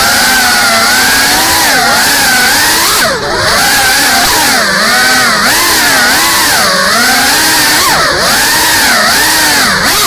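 GEPRC CineLog35 cinewhoop's brushless motors and propellers whining, the pitch swinging up and down constantly as the throttle is worked through flips and turns. About three seconds in the throttle briefly chops, the whine dipping before climbing again, with a smaller dip about eight seconds in.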